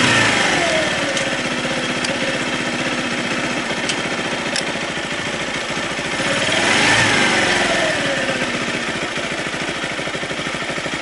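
Zontes Tiger 125cc motorcycle's single-cylinder four-stroke engine idling in neutral. The revs fall away from a throttle blip at the start. It is revved again about six seconds in and drops back to idle.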